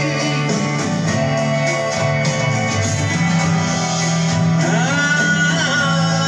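A song with guitar and some singing, played loud through passive Magnum loudspeaker cabinets driven by an Audio Leader Slim 1000 power amplifier.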